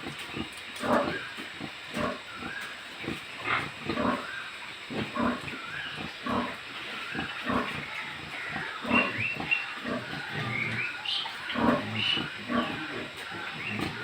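Domestic pigs grunting over and over in quick, irregular succession, with a few short, higher squeals in the second half.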